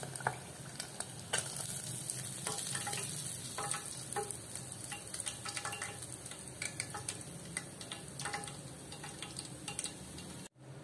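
Hot oil sizzling and crackling in a steel pot of frying mackerel, with a few light metal clinks as tongs lift the fish out. The sound cuts out briefly near the end.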